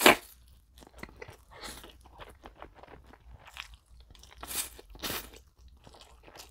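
Close-miked slurping and wet chewing of spicy stir-fried instant noodles: a loud slurp at the start, small mouth clicks and smacks, then two more slurps about four and a half and five seconds in.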